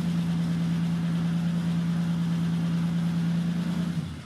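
BMW E30 325i's straight-six engine idling at a steady speed, a constant even hum that fades out near the end.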